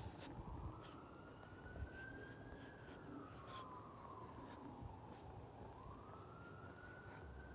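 A faint emergency-vehicle siren on a slow wail, its pitch rising and falling about once every five seconds.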